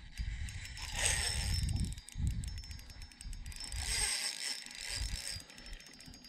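Fishing reel drag clicking rapidly as a hooked fish pulls line off the spool, in two runs: about a second in and again around four seconds in.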